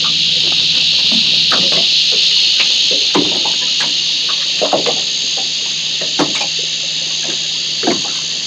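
Steady high-pitched insect drone, with scattered light knocks and taps as squid are handled and cleaned in a small boat.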